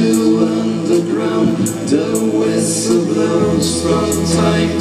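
A live rock band playing: two electric guitars, drums with cymbal strokes, and keyboard, with a male voice singing. A low bass note comes in about three and a half seconds in.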